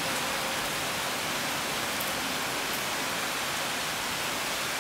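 Heavy summer rain falling in a steady downpour, an even hiss.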